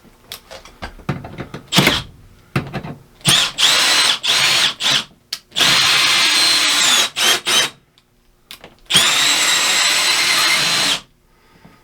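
Power drill running in a few short blips, then three longer runs of about two seconds each, on a clamp bolt of an RV rooftop air conditioner that feels wrong and that he fears may break.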